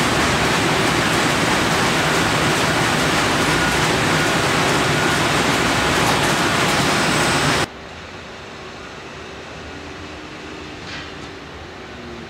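Steady loud factory machinery noise from an automated palletizing line. About eight seconds in it cuts off abruptly to a much quieter machine hum with faint steady tones.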